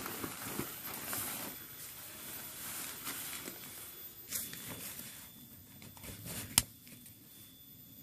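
Nylon tent flysheet rustling as it is handled and pulled over a dome tent, louder at first and then fading. There is a small click about four seconds in and a sharp click about six and a half seconds in.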